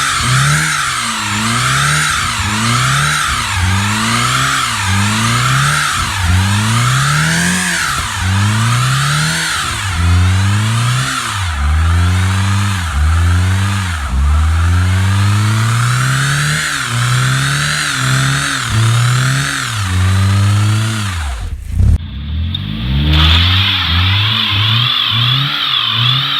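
2007 Honda Civic's four-cylinder engine revving hard over and over during a burnout, its pitch climbing and dropping about once a second. It dips briefly near the end, and a wavering high-pitched whine follows.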